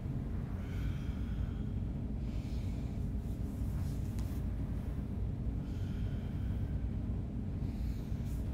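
A man's heavy breathing, about four breaths a couple of seconds apart, over a steady low rumble.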